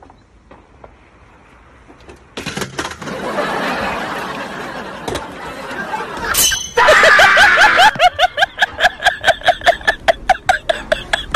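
Loud laughter from about seven seconds in, in quick repeated bursts of about three a second. Before it there is a few seconds of rushing noise.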